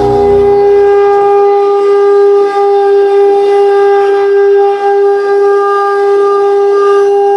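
A conch shell (shankh) blown in one long, steady note, held unbroken, as in Shiva worship. A low rumble fades out in the first second or so.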